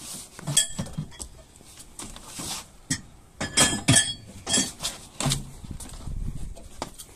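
Tools and gear being moved and stowed in the back of a van: a string of clinks and knocks, a few with a short metallic ring, and heavier thuds of boots on the van floor near the end.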